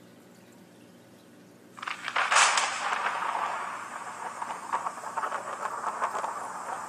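A sudden crack of thunder about two seconds in, followed by rolling, crackling thunder with little deep bass.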